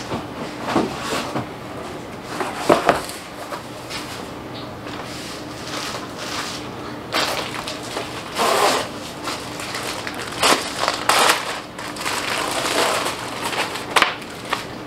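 Irregular crinkling, rustling and knocks of items handled on a kitchen counter, as a box of plastic food wrap and a stack of tortillas are set down, with a faint steady hum underneath.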